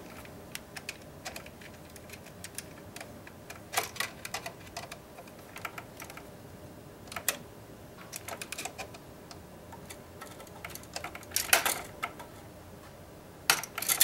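Scattered small clicks and scrapes of a screwdriver turning the terminal screw of a GFCI receptacle and the device being handled, with a few louder clusters of clicks.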